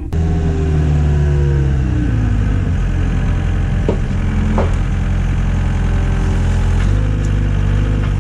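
Compact track loader (skid steer) engine running, its pitch falling over the first couple of seconds as it settles to a steady idle, with a shift in engine speed about seven seconds in.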